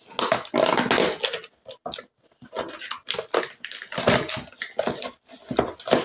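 Small cardboard box being handled and opened: irregular scraping and crinkling of the cardboard as its end flap is worked loose and pulled open.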